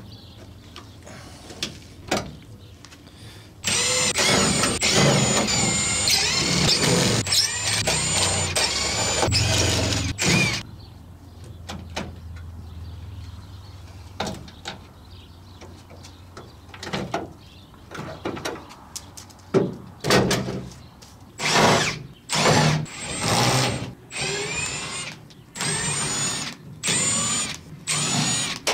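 Cordless Milwaukee impact driver hammering out the bolts and screws that hold a car's rubber seals. One long run of several seconds comes a few seconds in, then many short bursts near the end as fasteners back out.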